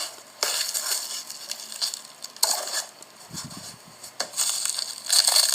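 Packing material rustling and crinkling in irregular bursts as it is handled and pulled from a shipping box, loudest near the end.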